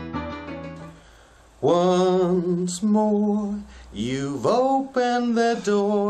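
Piano music fades out in the first second. Then a man sings unaccompanied in long held notes that slide and waver in pitch: tuneless caterwauling.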